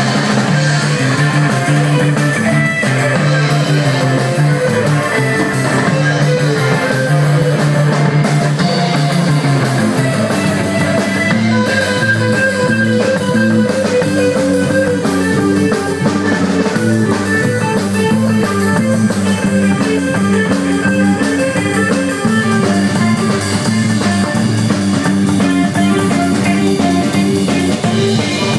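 Live rock band playing loudly: electric guitar and bass over a drum kit. The low bass line shifts from long held notes to a busier pattern about ten seconds in.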